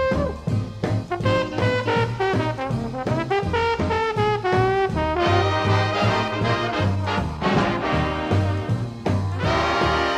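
Swing-style music with brass horns carrying the melody over a steady bass beat.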